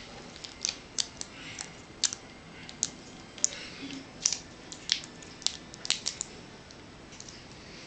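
Irregular sharp clicks and crackles, about a dozen in six seconds, from handling a battery while paper clips are taped to its ends.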